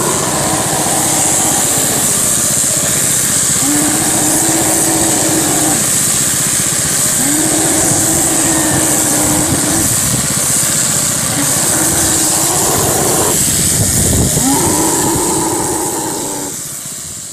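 Electric shearing clippers running steadily with a high whirring hiss, while a dromedary camel being sheared gives about five long, level moaning calls, each about two seconds long.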